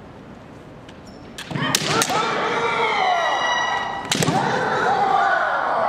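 Bamboo kendo shinai striking with sharp cracks, a quick cluster about a second and a half in and another near four seconds, amid long drawn-out kiai shouts from the fencers.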